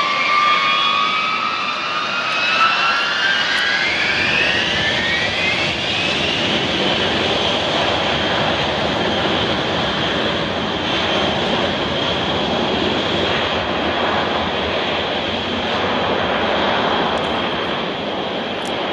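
B-52H Stratofortress bombers' eight TF33 turbofan jet engines at takeoff power during the takeoff roll. A loud, steady jet rumble carries a high whine that climbs in pitch over the first several seconds and then holds steady.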